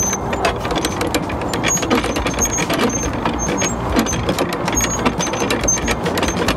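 Canal lock paddle gear being wound with a windlass: rapid metallic clicking of the ratchet and pawl, with short high metallic pings, over a steady rushing noise.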